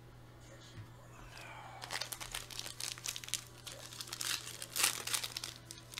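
Foil wrapper of a baseball-card pack being torn open and crinkled by hand: a quick, irregular crackling that starts about two seconds in.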